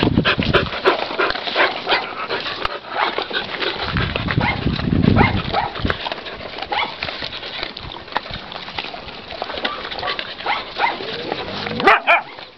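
Dogs eating from metal bowls: a dense, irregular run of quick chewing, smacking and lapping clicks.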